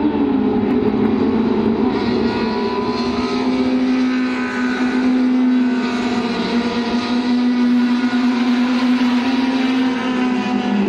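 A pack of small-displacement touring race cars running at high revs, several engines overlapping. One strong engine note holds a steady pitch through most of it, with the other cars' higher notes layered over it.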